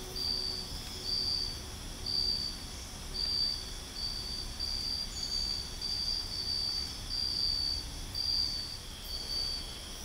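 Night insect, cricket-like, calling in a steady series of high-pitched pulses, each about half a second long and about one a second, over a fainter continuous high insect hum.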